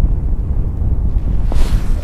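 Wind buffeting the microphone: a heavy, fluttering low rumble. About one and a half seconds in there is a brief, sharp rustle.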